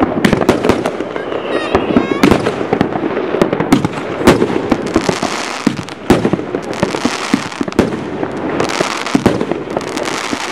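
Fireworks going off in quick succession: a dense run of sharp bangs and crackles from aerial bursts, with a short whistling glide about a second and a half in and stretches of hissing crackle later on.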